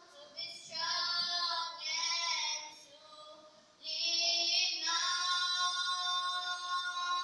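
A group of young schoolgirls singing together: two short phrases, a brief pause about three seconds in, then one long held note.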